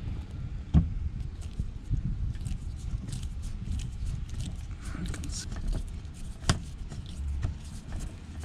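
Phillips screwdriver working a screw out of the underbody panel, with light scattered clicks and two sharper knocks, one just under a second in and one about two-thirds of the way through.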